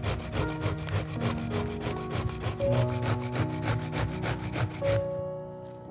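Zucchini being grated on a stainless-steel grater: rapid, even rasping strokes, about six a second, that stop about five seconds in. Soft piano music plays underneath.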